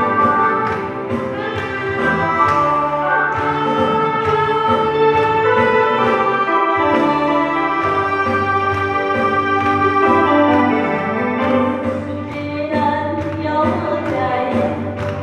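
Korean trot song: a woman singing over band accompaniment.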